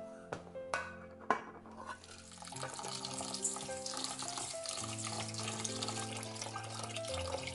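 Multigrain rice being washed and stirred in water in a stainless steel pot with a spatula: a steady swishing of water and grains that starts about two and a half seconds in, over background music. Before it come a few sharp knocks.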